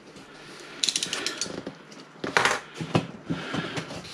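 Cardboard delivery box being opened: a knife slitting the packing tape gives a run of crackling scratches about a second in, followed by a louder rasp and a few knocks of the cardboard flaps being pulled up.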